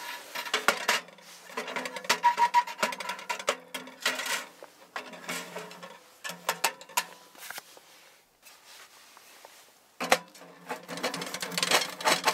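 Winnerwell stainless steel tent stove being handled and assembled: repeated metal clinks, knocks and scrapes as its parts are fitted, with a quieter stretch in the middle. Steady background music plays underneath.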